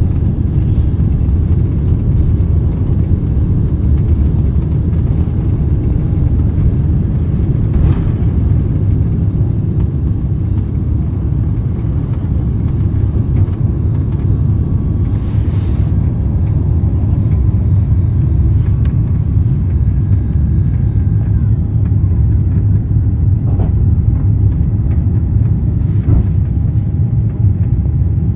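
Steady low rumble of an Airbus A350 heard from inside the passenger cabin, engine and airframe noise at an even level, with a few faint brief ticks.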